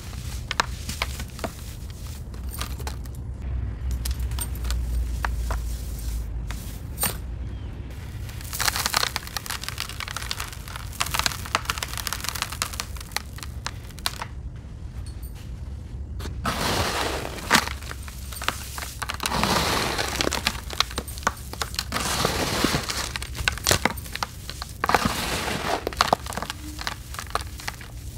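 Hands squeezing, crumbling and mixing a damp sand mixture in a plastic basin: gritty crunching and crackling in uneven bursts, with a quieter pause about halfway through. A low steady hum runs underneath.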